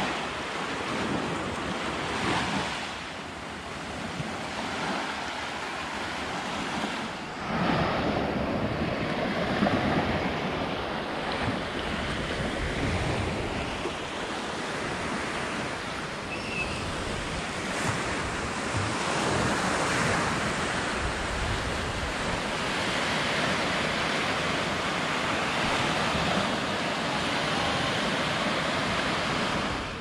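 Small waves breaking and washing up the sand in a steady surging hiss, with wind buffeting the microphone.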